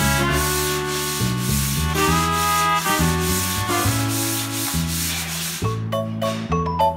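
Hand sanding block with sandpaper rasping back and forth over a plastered wall in quick strokes, about three a second, breaking off near the end. Background music with melodic pitched notes plays throughout.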